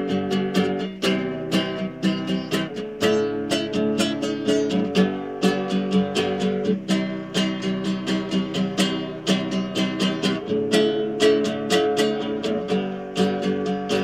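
Acoustic guitar strummed in a steady rhythm, the chord changing every few seconds, without any singing.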